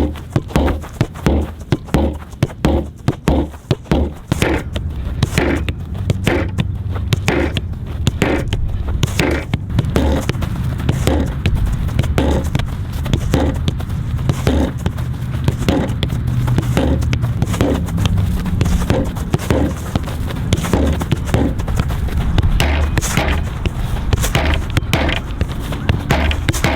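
A soccer ball being touched and kicked in quick succession: a run of sharp taps about two or three a second over a steady low rumble.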